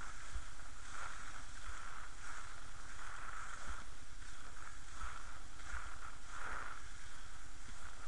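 Inline speed skates rolling on asphalt, with a swishing push about every half second to second as the skater strides, over steady wind noise buffeting the body-worn action camera's microphone.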